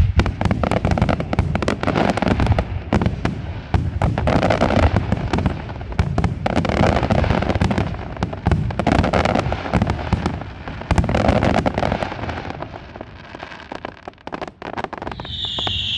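Fireworks display: a dense, rapid barrage of aerial shell bursts and crackling with a heavy low rumble, thinning out and dying away in the last few seconds.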